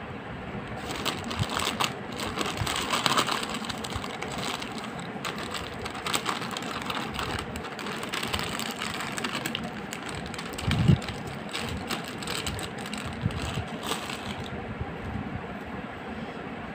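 Crinkling and rustling of a foil snack packet as crunchy puffed sticks are shaken out of it into a hand, with a soft low thump about eleven seconds in. The crackling stops near the end, leaving a steady background noise.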